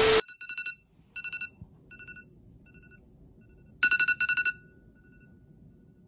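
iPhone alarm ringing: groups of short, high, repeated beeps, faint at first and loudest about four seconds in, then stopping. A burst of TV-static noise with a steady tone ends just as the beeps begin.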